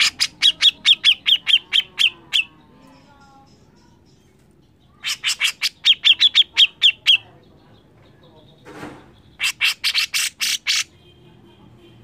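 Grey-cheeked bulbul (cucak jenggot) giving three bursts of harsh, rapid chattering calls, about four to five notes a second: one at the start, one about five seconds in, and a shorter one near the end. This is the rough, insistent 'mbeset' call that keepers play to other birds to set them calling.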